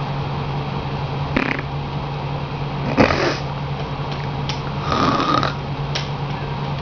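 Elderly woman snoring: three snores, the loudest about three seconds in, over a steady low hum.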